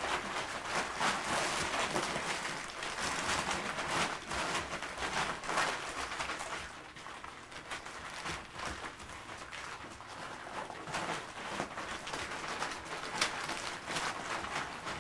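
Springer spaniel puppies pawing and tugging at a paper pee sheet on a tatami floor: continuous papery rustling and crinkling with many small scratches and scuffles. The rustling eases for a few seconds in the middle, then picks up again.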